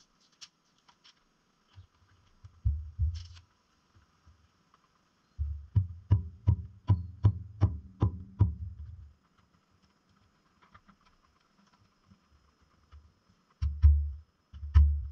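Sledgehammer blows on a heavy timber frame, each a dull thud with a sharp crack on top. There are a couple of blows about three seconds in, then a run of about ten at roughly two a second, and a few more near the end.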